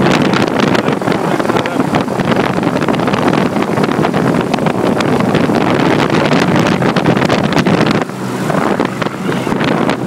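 Daikin HVAC outdoor unit running, a loud steady whir of its fan and compressor close to the microphone, with a low hum under it; the noise eases slightly about eight seconds in.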